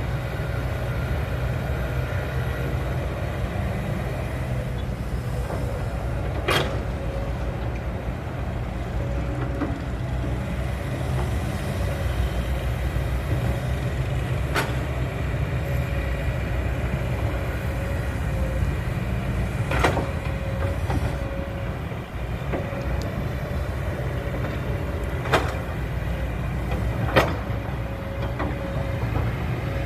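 A 20-ton-class hydraulic excavator working, its diesel engine running steadily with a faint hydraulic whine. A handful of sharp metallic clanks come at irregular intervals.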